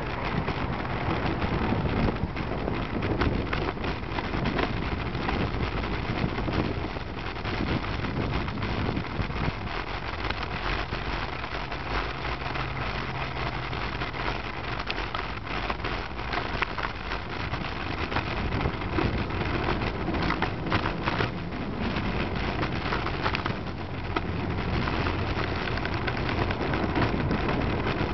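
Steady rush of wind on the microphone of a moving road bike, mixed with motor traffic passing close by. A low engine hum from a passing vehicle shows through in the middle.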